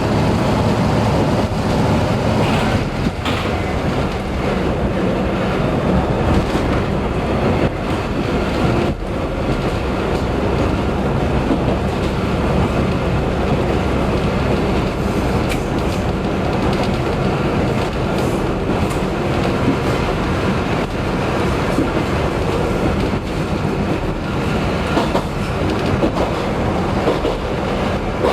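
Diesel train running along the track, heard from the front of the train: a steady rumble and engine hum with occasional clicks of the wheels over rail joints.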